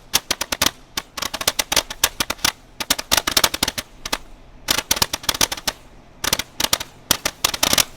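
A string of firecrackers going off: rapid, irregular sharp cracks in dense clusters, with a few short lulls.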